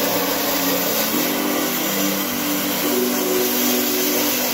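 Angle grinder grinding steel: a steady motor whine and grinding hiss, its pitch shifting a few times as the disc is pressed against the metal.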